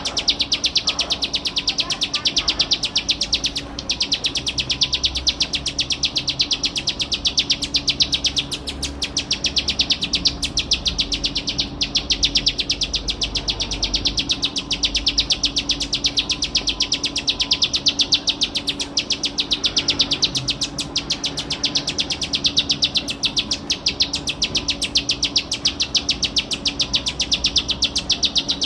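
Plain prinia (ciblek sawah) singing a near-continuous trill of rapidly repeated high notes, many a second, broken only by a few short pauses. A faint steady low hum lies underneath.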